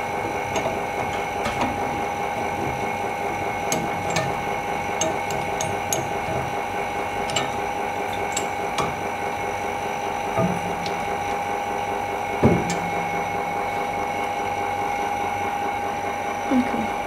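Steady electric hum of workshop machinery, with scattered small clicks of handling. There is a single knock about twelve and a half seconds in.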